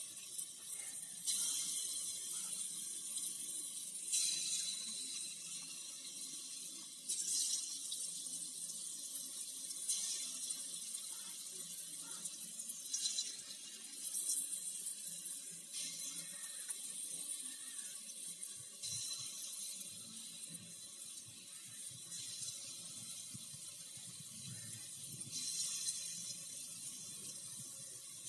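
Hot oil sizzling steadily as sweet wheat-flour batter balls (bondas) deep-fry in a wide aluminium pan, the hiss swelling in louder surges every few seconds.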